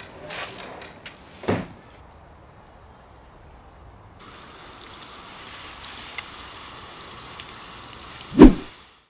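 Footsteps on patio paving as a garden hose is pulled along, with a knock about a second and a half in. From about four seconds on, the steady hiss of water spraying from a Gardena hose spray gun onto plants, then a loud thump near the end.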